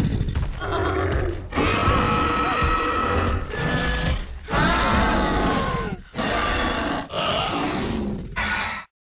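Designed dinosaur vocal sound effects: a string of growls and roars, one cut straight after another with short breaks, some calls sliding down in pitch. The sequence stops dead in an abrupt cut to silence near the end.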